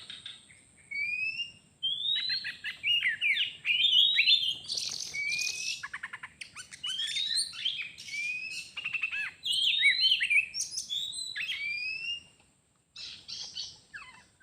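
Oriental magpie-robin singing: a varied, continuous run of clear rising whistles mixed with rapid chattering notes, broken by a short gap about twelve seconds in.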